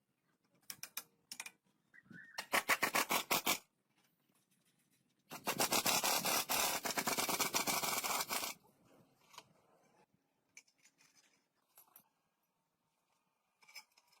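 Rapid abrasive scraping, in two bursts: a short one about two and a half seconds in and a longer one of about three seconds in the middle. Scattered light clicks and taps come between and after.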